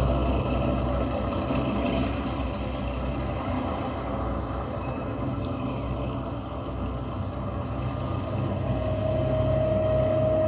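Tracked military armoured vehicles driving past with a steady engine rumble and road noise; a steady high whine joins in near the end.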